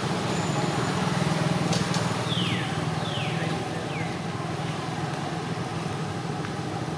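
Steady low hum and hiss of distant motor traffic, with three short high chirps that each fall in pitch, about two, three and four seconds in.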